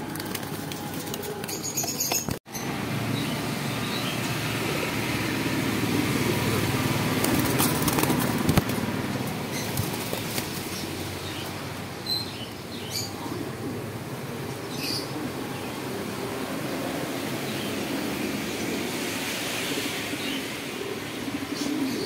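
Caged domestic pigeons fluttering and flapping their wings against the wire mesh, a continuous rustle of wingbeats and movement.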